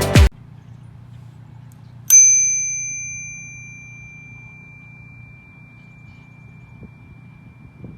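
Knog Oi Classic bicycle bell struck once about two seconds in: a single clear ding that keeps ringing, fading slowly over several seconds.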